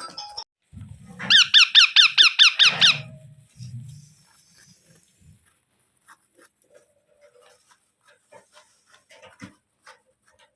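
Indian ringneck parakeet giving a rapid run of about a dozen sharp, squeaky calls, about seven a second, for nearly two seconds, with low bumps around it; after that only faint clicks and rustles.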